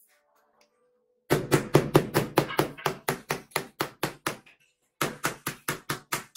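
Hand tapping a large granite floor tile to bed it into the mortar beneath: a fast run of knocks, about five a second, starting about a second in, with a short break before another run near the end.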